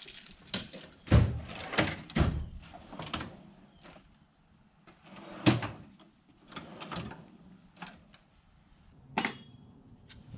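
Steel drawers of a Matco roller tool chest being pulled open and pushed shut, with a string of clunks and knocks from the drawers and the tools and abrasive discs inside as they are rummaged through. The loudest clunk comes about five and a half seconds in.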